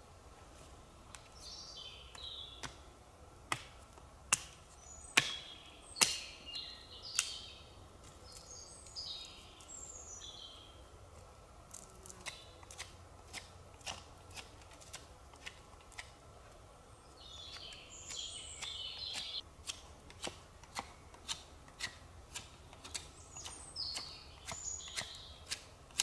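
Sharp wooden clicks of a knife working sticks into stakes, a few loud cracks in the first seconds and then a stroke roughly every 0.7 s through the second half. Forest birds sing in between.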